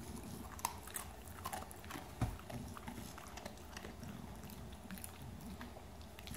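Dog chewing and licking: irregular wet clicks and smacks of mouth and tongue, with a dull thump about two seconds in.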